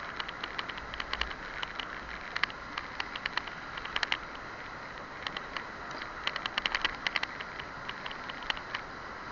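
Steady rush of moving water with many short, irregular splashes and clicks, and a low rumble of wind on the microphone.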